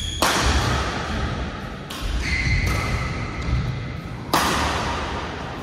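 Badminton rally echoing in a sports hall: rackets strike the shuttlecock three times, about a quarter, two and four and a third seconds in, under low thudding footfalls on the court.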